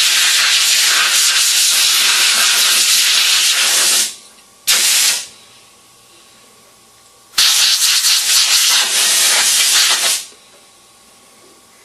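Compressed air hissing from a blow gun on an air hose, blowing water out of a washed foam air-filter precleaner: a long blast that stops about four seconds in, a short burst just after, then another blast of about three seconds.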